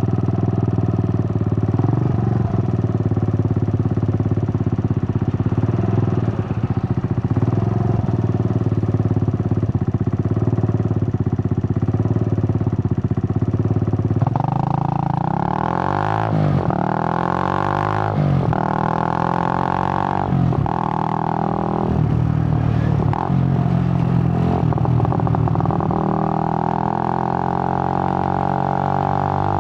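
Suzuki GN125's single-cylinder four-stroke engine running at a steady pitch. About halfway through, the revs begin rising and dropping several times, as when the bike accelerates up through the gears.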